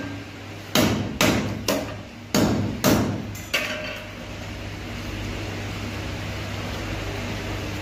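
Hand hammer striking a pedestal fan's metal hub and sheet-metal blade assembly: about six sharp metallic blows in the first three and a half seconds, each ringing briefly. After that only a steady low hum remains.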